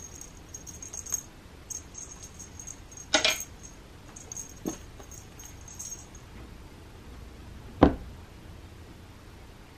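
Light metallic jingling in short bursts as a cat toy is flicked about on a carpeted scratching ramp, with a soft thump about three seconds in, another near five, and the loudest thump just before eight seconds as a cat pounces onto the toy on the ramp.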